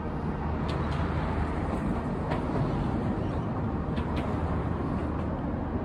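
Steady low outdoor rumble with a few faint, short clicks scattered through it.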